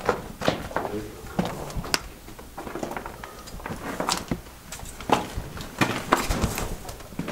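Irregular footsteps and scuffs inside a mine tunnel, about one or two sharp steps a second.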